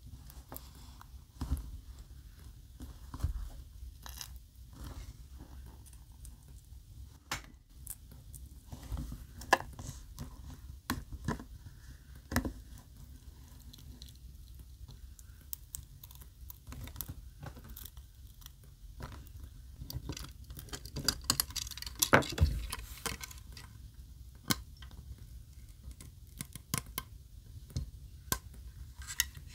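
Plastic opening pick scraping and clicking along the edge of an iPhone 16 Pro as the glued-down screen is pried free of the frame: scattered small ticks and scrapes, with a louder stretch of crackling tearing about three quarters of the way through as the adhesive lets go.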